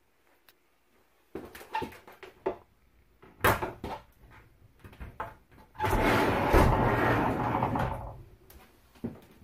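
Travel trailer's curved sliding shower door with frosted panels being handled: scattered clicks and a sharp knock, then a loud rolling rumble lasting about two seconds as the door slides along its track.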